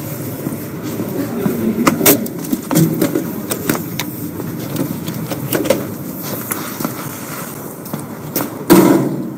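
Rubbing and handling noise from a jostled, carried camera as its carrier walks over hard floor and concrete, with scattered knocks and clicks and one loud thump near the end.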